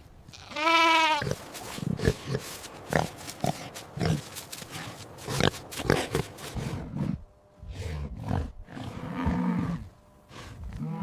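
A sheep bleats once, a single wavering call about half a second in. It is followed by a long run of short, rough grunts and snuffling clicks from farm animals.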